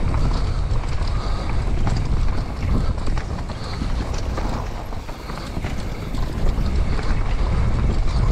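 Wind noise on an action camera's microphone on a downhill mountain bike at speed, with tyres rumbling over a dirt trail and many small knocks and rattles from the bike over bumps. The rush eases a little around the middle, then picks up again.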